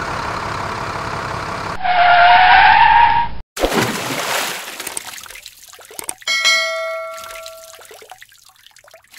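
A loud rising electronic sound effect that cuts off about three and a half seconds in, followed by a splash as a plastic toy dump truck drops into a shallow stream. A bell-like notification chime then rings for over a second, over the rush of the stream.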